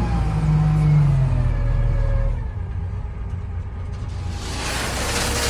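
Heavy vehicle engine running under load, its pitch rising and falling in the first two seconds before it eases off. A rushing hiss joins near the end.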